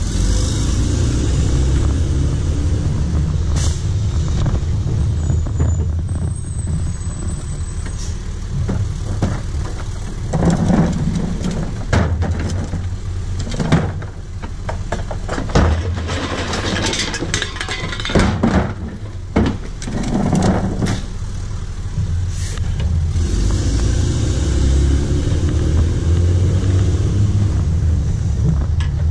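Rear-loader garbage truck's engine running steadily, with a load of recyclables (cans, plastic bottles, cartons and cardboard) tipped into the steel hopper midway through, clattering and knocking for several seconds. The engine comes up a little louder in the last few seconds.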